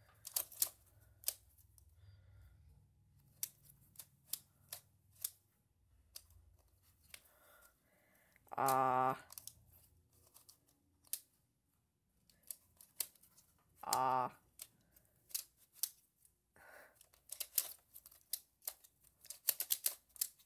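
Plastic clicks and clacks of a QiYi Qicheng jelly skewb puzzle being turned by hand, in quick runs of turns that grow busiest near the end. A person hums briefly twice, about nine and fourteen seconds in.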